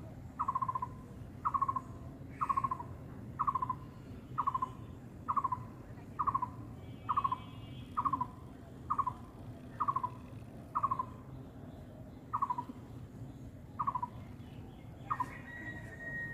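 An animal calling a short, slightly falling note over and over, about once a second, at an even pace.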